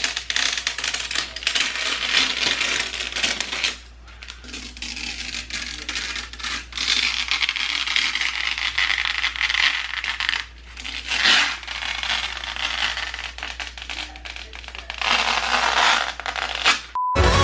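Rapid, dense clicking and rattling, like small hard parts being handled or tapped, in stretches broken by short pauses, over a steady low hum; a short beep sounds just before the end.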